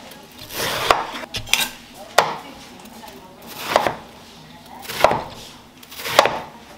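Chef's knife slicing through peeled watermelon on a wooden cutting board: about six cuts, each a short swell of crunching through the flesh that ends in a knock of the blade against the board.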